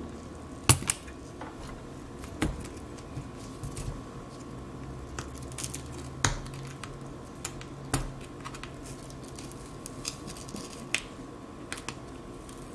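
A pry tool working under the shattered glass digitizer of an iPad 6, giving scattered sharp clicks and crackles as the cracked glass and its adhesive give way. The loudest pair of clicks comes about a second in, with more at irregular intervals after.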